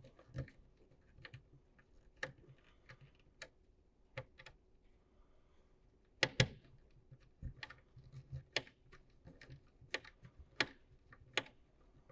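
Small flat-tip screwdriver working the screw terminals on an LTEM-PV communicator's circuit board, tightening them down on the wires: irregular light clicks and taps, with a few sharper ones past the middle and towards the end.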